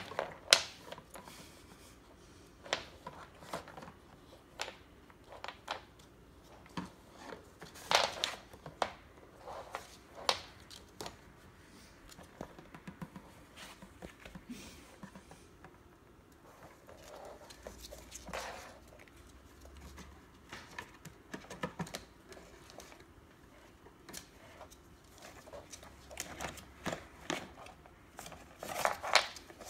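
Wooden Jenga blocks clicking and knocking at irregular intervals as ferrets push and topple them, with louder knocks near the start, about eight seconds in, and a cluster near the end.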